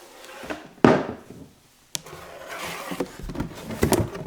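Cardboard box and skate boots being handled: a loud thump about a second in, a sharp click near two seconds, then rustling and scraping.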